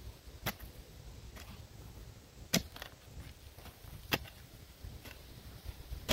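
Steel spade blade chopping down into turf and soil to edge a mulch bed. Sharp single chops come about every one and a half to two seconds, with a smaller second strike after one of them.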